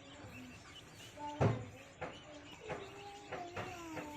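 Chickens calling: drawn-out, slightly falling calls that overlap one another. Several sharp knocks come in among them, the loudest about a second and a half in.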